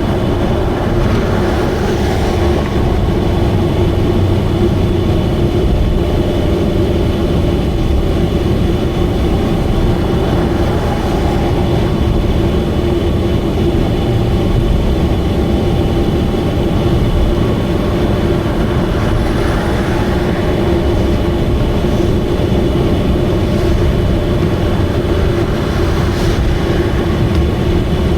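Subaru Vivio's small four-cylinder engine and exhaust droning loudly at a steady highway cruise over road rumble, made loud by an exhaust leak.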